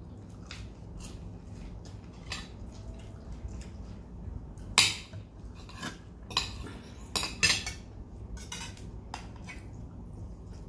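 Cutlery clinking and scraping against plates during a meal: a scatter of sharp clinks, the loudest about five seconds in and again around seven and a half seconds.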